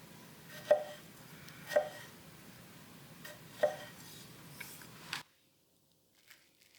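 Apex Ultra steel bunka kitchen knife slicing a tomato, the blade knocking on the cutting board three times, with fainter taps between. The sound cuts off abruptly about five seconds in.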